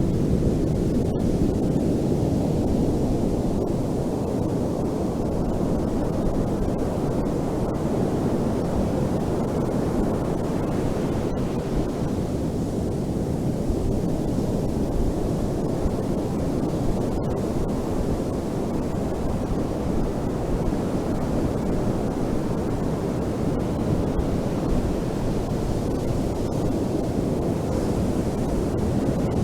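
Ocean surf as a steady, low, unbroken roar, with no single wave breaks standing out.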